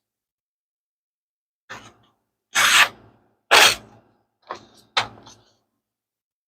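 A Leatherman Skeletool blade shaving arm hair in five short scraping strokes, the two in the middle the loudest. The edge is hair-shaving sharp after sharpening.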